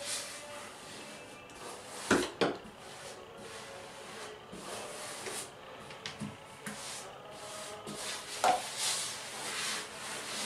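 Rubber grout float scraping and rubbing grout across porcelain wall tile in repeated strokes, with a few sharp knocks: two close together about two seconds in and one more later on.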